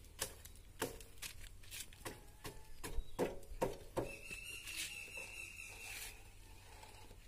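A rusted, seized Bajaj Discover 100 being rocked and pushed by hand: irregular faint clicks, knocks and rattles, with a steady high squeal lasting about two seconds midway. The bike is jammed, its wheel bearings worn out from rust.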